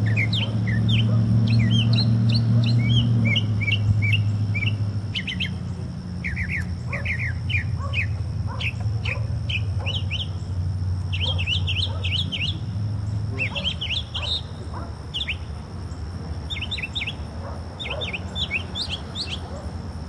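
Northern mockingbird singing: quick runs of high chirps and sweeping notes, each phrase repeated in short clusters, over a steady low hum that is loudest for the first few seconds.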